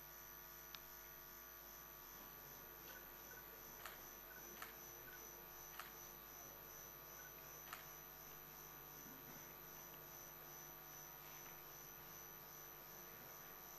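Near silence: a steady electrical hum with a thin high whine, and a few faint clicks about a second or two apart.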